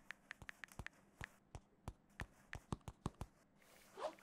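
A plastic stylus tip tapping on a drawing screen in quick, uneven taps, several a second at first and then spaced further apart. A faint, brief rising sound comes near the end.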